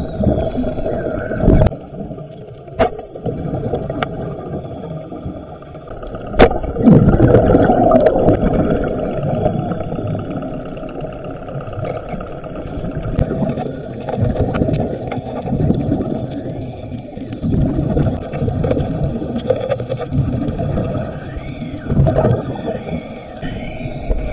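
Water heard underwater through a camera's waterproof housing: a muffled rumbling and gurgling of moving water and bubbles, with a few sharp clicks in the first several seconds.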